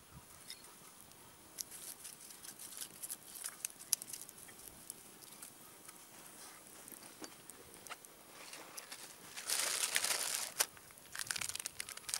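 Small campfire crackling with scattered sharp snaps, and a louder rustling hiss for about a second near the end.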